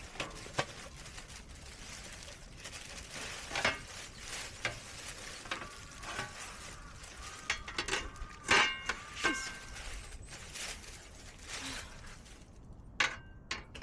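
Objects being handled and set down: scattered knocks and clicks, and one louder metal clink about eight and a half seconds in that rings briefly.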